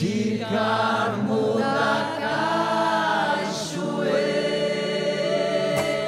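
Choir singing a hymn to the Virgin Mary, with voices gliding between notes and then holding one long note over the last two seconds.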